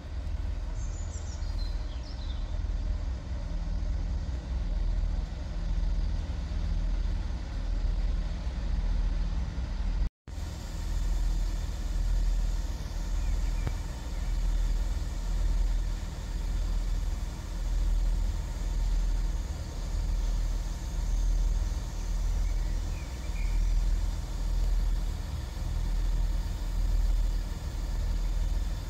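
Diesel multiple unit's underfloor engines idling at the platform: a steady low throb that swells and fades about once a second. A cut about ten seconds in drops it to silence for an instant, then the idling goes on.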